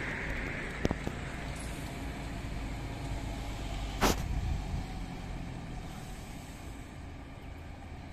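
A bus passes close by and pulls away, over a steady low rumble of road traffic. A short, sharp burst of noise stands out about four seconds in, with a faint click about a second in.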